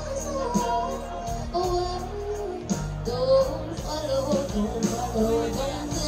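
A woman singing live into a microphone over backing music, amplified through a stage PA.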